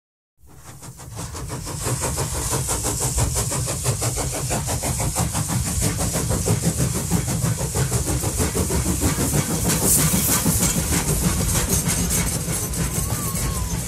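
Steady engine-like mechanical running sound, fading in over about the first two seconds after a brief silence and then holding level.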